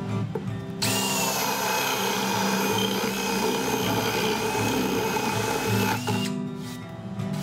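Drill with a paddle (spade) bit boring a hole into a fibreboard panel. It starts about a second in, runs steadily with a thin whine over the cutting noise, and stops near the end.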